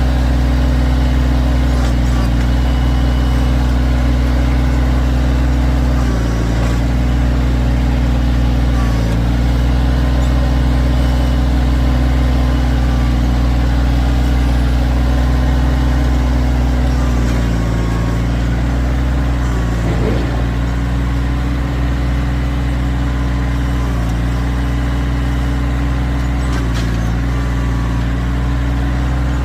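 Kioti tractor's diesel engine running steadily under the loader's work. Its note dips briefly a few times, about six and nine seconds in and again near eighteen seconds, as the engine takes load.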